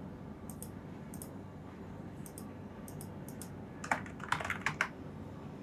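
Computer keyboard typing: a few scattered light clicks, then a quick run of about five keystrokes about four seconds in.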